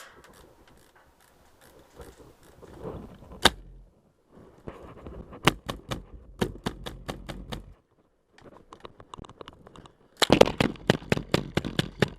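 Airsoft guns firing: a loud single shot, then scattered strings of shots, and near the end a fast full-auto burst, the loudest part.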